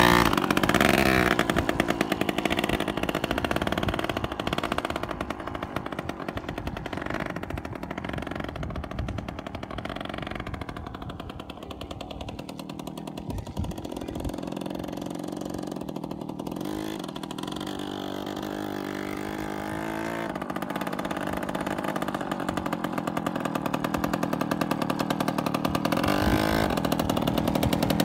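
Yamaha PW80 dirt bike's small two-stroke single-cylinder engine running as the bike rides away, growing fainter through the middle, then louder again as it comes back near the end. Its pitch rises and falls with the throttle.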